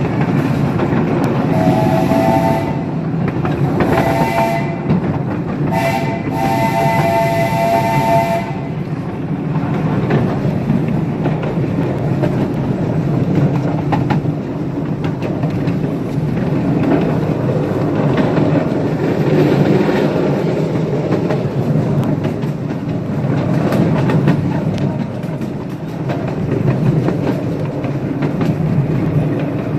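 A live steam locomotive's chime whistle sounds four blasts, long, long, short, long: the grade-crossing signal given when approaching a road crossing. Underneath, the train runs steadily with a rumble and the click of wheels over rail joints.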